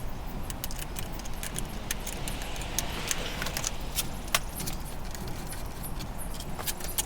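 Irregular metallic clicks and clinks of a 10 mm socket wrench and metal hardware being worked to remove a car battery.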